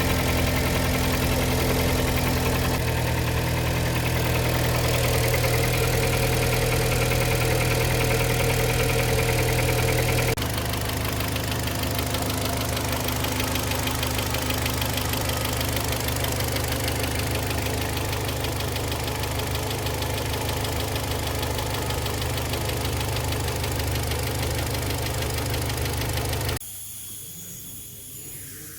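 Kia Sportage 3 engine running at idle with a dull metallic knock, at 122,000 km and before its service; the owner later ties the knock to a timing chain due for replacement. The sound changes abruptly a few times, and it drops to a quieter level near the end.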